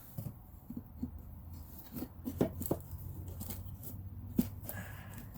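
Wood laminate flooring plank being handled and worked into place: scattered light knocks, clicks and scrapes, over a low steady hum.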